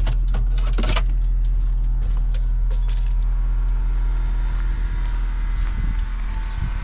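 A vehicle engine idling with a steady low hum. Metallic jingling and clicks, like keys, sound over it in the first three seconds, then stop.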